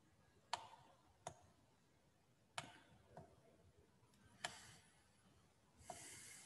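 Faint computer mouse clicks, about six sharp single clicks at irregular intervals, with a short hiss near the end.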